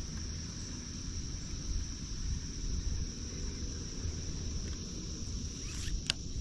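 Insects singing in a steady chorus, a constant high-pitched buzz, over low wind rumble on the microphone; one sharp click near the end.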